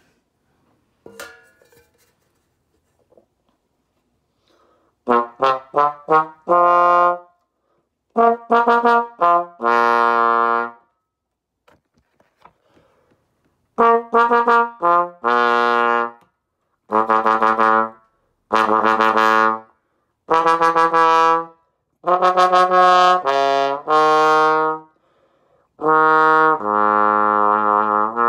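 Bass trombone played with a Windy City straight mute in the bell. After a few faint clicks, it plays several short phrases starting about five seconds in: quick tongued notes, then longer held notes, some dropping into the low register.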